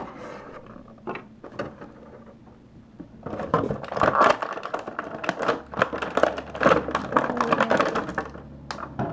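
Clear plastic bag crinkling and crackling as an action figure is worked out of it: a few scattered crackles at first, then dense crackling from about three seconds in until near the end.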